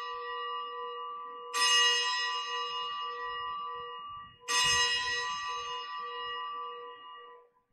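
Altar bell rung at the elevation of the consecrated host: a single bell already ringing from a stroke just before, then struck again about one and a half and four and a half seconds in, each stroke ringing with several clear tones and fading slowly.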